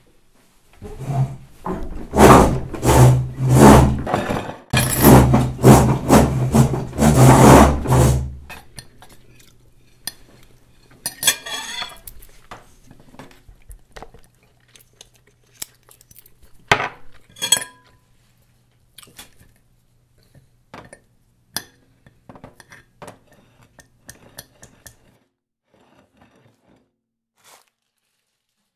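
Fork and knife on a plate while eating pancakes: dense, loud scraping and knocking for about the first eight seconds, then scattered single clinks of cutlery on the dish that thin out near the end.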